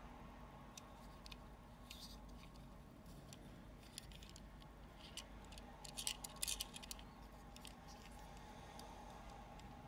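Light clicks and rubbing from fingers handling a small diecast model car, with a cluster of louder clicks about six seconds in, over a faint steady hum.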